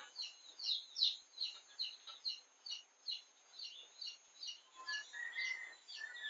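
A small bird chirping over and over in short, high chirps, about two or three a second, with a fainter drawn-out note joining about five seconds in.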